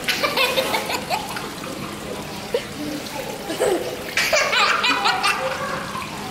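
A young child laughing in short bursts, near the start and again about four seconds in, with water running and splashing at a water play table.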